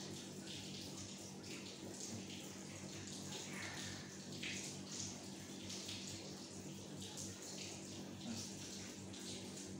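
Hands massaging the skin of the inner thigh: irregular soft rubbing and sliding strokes with a wet, slippery quality, over a steady low hum.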